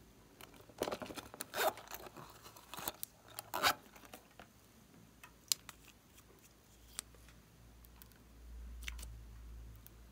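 Small plastic objects handled close to the microphone: a run of sharp clicks and rustles, then a few single light clicks as a small bottle's cap is worked, and a faint low rumble near the end.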